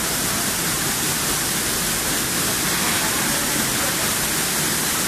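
Waterfall rushing: a loud, steady wash of falling water with no break in it.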